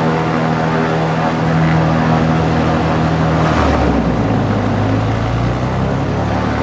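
Cessna 310Q's six-cylinder Continental piston engine and propeller running at run-up power, heard in the cockpit. About halfway through, the engine note drops lower as the propeller lever is pulled back and the governor coarsens the blade pitch. Near the end the note climbs back as the lever goes forward again: the propeller check of the run-up, showing the prop governor working.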